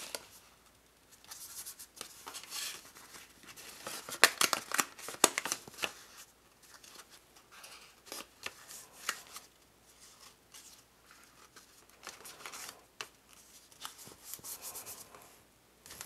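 Cardstock pieces sliding and rustling under hands as they are placed and pressed down onto adhesive, with fingers rubbing the paper flat and small clicks and scrapes against the tabletop. It comes in irregular spells, busiest about four to five seconds in.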